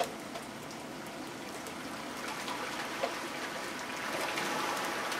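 Steady trickling of flowing floodwater, a continuous watery hiss that swells slightly near the end, with a few faint brief blips over it.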